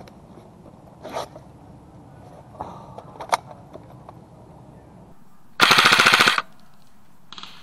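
A few faint clicks, then, about five and a half seconds in, a loud, short full-auto burst from an airsoft electric rifle (AEG): a rapid, even rattle of shots lasting under a second.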